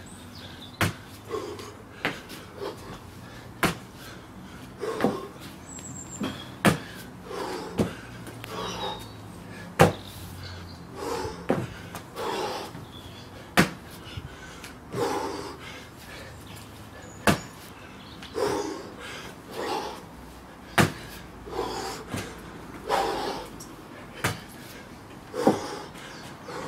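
Burpee mule kicks done over and over: sharp slaps of hands and feet landing on the ground every second or so, with hard, heavy breaths between them.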